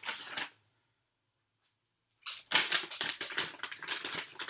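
Rapid, crisp clicking and crackling of dried herring pieces being handled and dropped into plastic slow-feeder bowls, cut off by dead silence shortly after the start and resuming about two seconds in.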